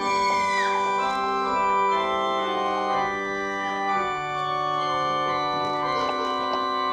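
Church organ playing slow sustained chords. The harmony shifts every second or two, and the low bass note drops to a lower pitch about four seconds in.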